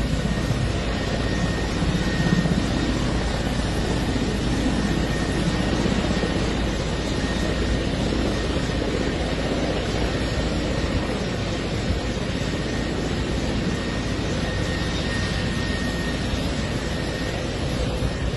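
Military helicopter's turbine engines running steadily on the ground: a low rumble with a faint high whine.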